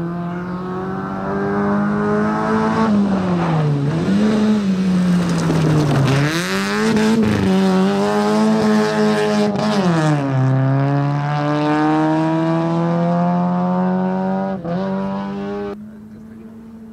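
Rally car engine running hard on a dirt stage, its pitch dropping and climbing again several times as the car lifts and shifts, with a spell of hiss from tyres and gravel in the middle. The engine sound drops away sharply near the end.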